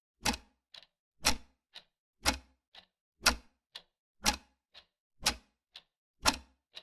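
Clock ticking at an even pace: a loud tick every second, each followed about half a second later by a softer tock.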